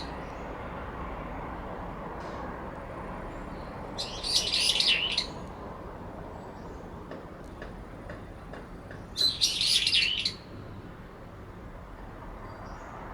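Two brown-eared bulbuls calling over each other in a territorial dispute: two loud, harsh, agitated bouts of about a second each, some five seconds apart. The resident bird calls at the same time as the intruder to drown out its song.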